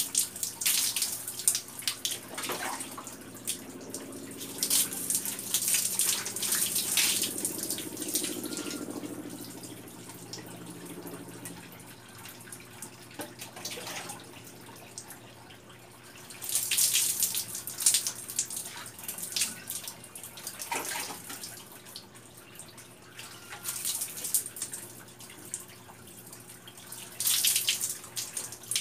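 Water poured from a plastic dipper over a bather, splashing down in repeated bursts with dripping in between.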